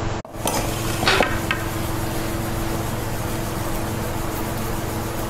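Steel spoon knocking and scraping against a stainless-steel steamer pot while steamed momos are lifted out: a few sharp clinks in the first second and a half, the loudest about a second in, then a steady hiss and hum.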